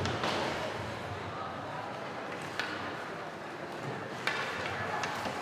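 Ice hockey play in a rink: a heavy thud at the start, then sharp clacks of sticks on the puck twice, over arena hubbub with spectators talking.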